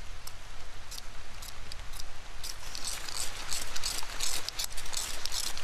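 A fire steel scraped to throw sparks onto a tuft of dry grass tinder, which flares and crackles briefly over wet kindling. Scattered sharp scrapes and crackles thicken into a dense run about halfway through.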